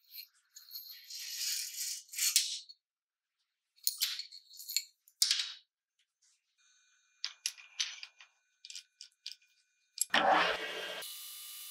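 Metal parts of a motorcycle telescopic front fork (chrome fork tube, spring, small fittings) clinking, scraping and rattling as they are handled and set down on a steel workbench, with scattered clicks. About ten seconds in comes a short loud rush, then a metal lathe runs with a steady hum.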